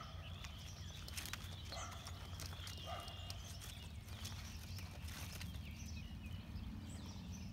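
Kentucky Mountain Saddle Horse stepping on soft dirt as it walks and turns, with scattered short clicks over a steady low rumble.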